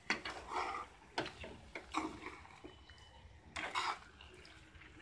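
A long metal spoon stirring chicken pieces in a wide metal pan: intermittent scrapes and clinks of the spoon against the pan, about a second apart.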